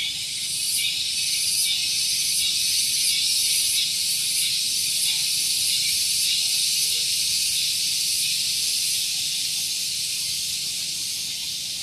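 Cicadas (tonggeret) calling in chorus: a loud, shrill, continuous buzz that rises in the first second or two and eases slightly near the end.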